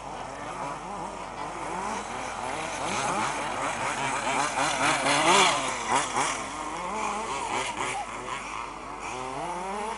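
Several 1/5-scale off-road RC cars' small two-stroke petrol engines racing, their pitches constantly rising and falling as the cars rev and ease off through the corners. The sound swells to its loudest about five to six seconds in, as cars pass close by.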